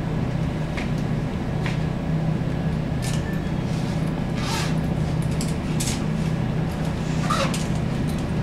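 Steady low hum inside the cabin of a ZiU-682G trolleybus standing still, with a few short clicks and brief hisses scattered through it.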